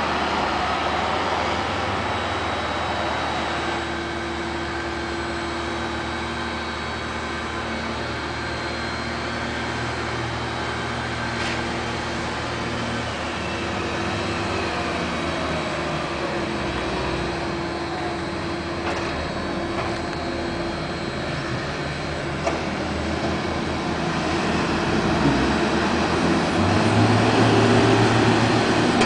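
Diesel engines of large farm tractors running as they spread and pack chopped silage in a concrete bunker silo. The engine note shifts as they drive and work, and grows louder near the end as one tractor comes close.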